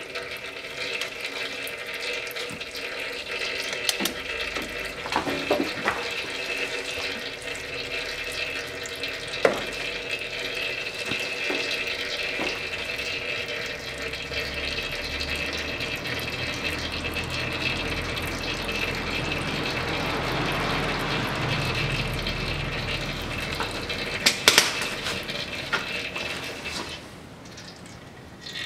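Old gear oil pouring in a steady stream from the transfer case drain hole into a metal basin, with a few sharp clicks. The flow dies away near the end.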